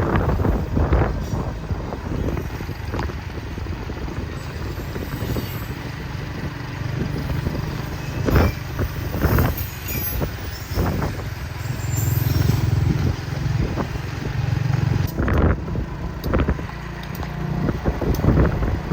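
Diesel locomotive running, a steady deep engine drone that swells for a couple of seconds past the middle, with a few sharp knocks.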